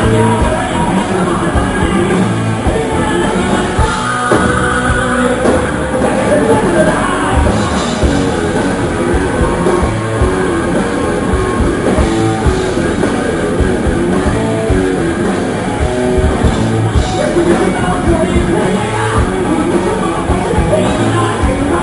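A live metal band playing loud: electric guitars and a drum kit, with a singer's voice over them.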